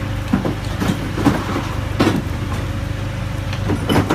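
Forklift engine running steadily while a quad bike is set down off its forks, with several sharp knocks and clunks, the loudest about two seconds in and near the end.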